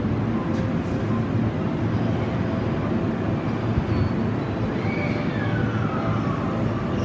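Sanyo Electric Railway electric train running, heard from inside the car: a steady low rumble, with a thin whine about five seconds in that falls in pitch.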